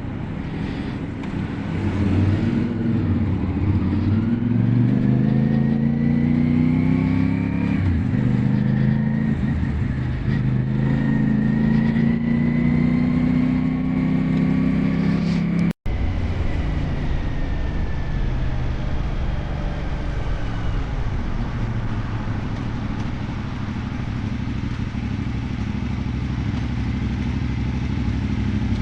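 CFMoto 450 CL-C motorcycle's parallel-twin engine pulling away under acceleration, its pitch rising twice with a gear change between, then running steadily at cruising speed. The sound cuts out for a moment about sixteen seconds in.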